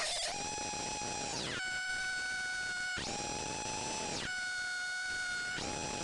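Homemade CMOS noise synth, four 4093 oscillators fed into a 4070 XOR gate, giving a harsh buzzing tone over a hiss. It flips back and forth between two pitches about every second and a half, sliding between them at each change.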